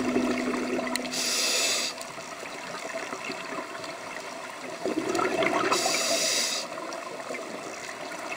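Scuba diver breathing through a regulator underwater: two short hissing breaths about four and a half seconds apart, with bubbling from the exhaled air between them.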